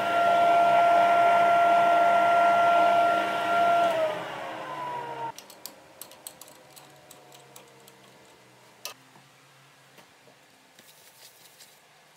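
Wood lathe running with a steady whine, which falls in pitch about four seconds in as it slows and then cuts off. After that come light clicks and taps as the bowl is handled in the aluminium Cole jaws, with one sharper knock.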